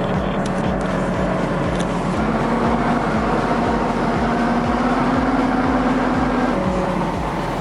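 Heavy diesel engine running under load, its pitch rising about two seconds in, holding, then dropping back near the end.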